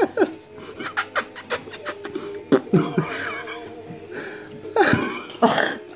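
Mouth noises: sucking and puffing through a drinking straw pressed to a Malteser, with many short clicks and a few brief stifled-laughter sounds.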